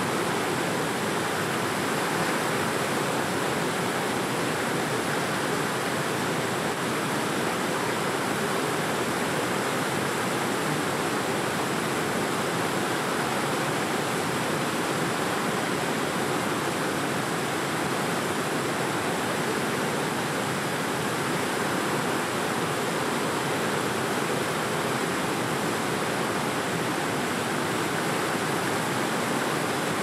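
Fast, shallow river water rushing and churning steadily, an even running-water noise.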